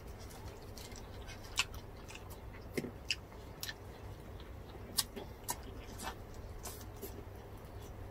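Faint crunching and chewing of crispy deep-fried pork crackling, heard as a dozen or so sharp, irregular crackles over a steady low hum.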